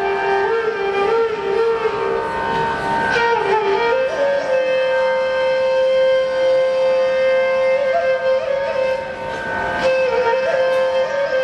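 Slow Carnatic-style melody opening the Mohiniyattam accompaniment. The line bends and ornaments through its notes and settles on one long held note from about four to eight seconds in.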